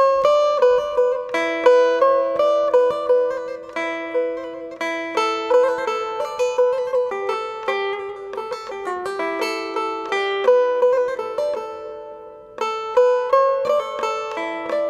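Background music: a plucked string instrument playing a melody of quick, sharply struck notes over a held low tone.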